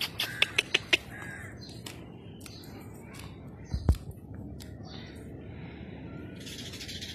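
A couple of short, harsh animal calls in the first second or so, among a quick run of sharp clicks, then a single low thump about four seconds in.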